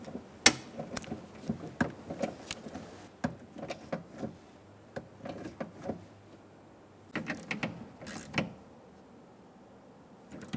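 Ratchet and socket clicking and knocking inside a car door as the door-handle nuts are snugged down, in irregular strokes with short pauses.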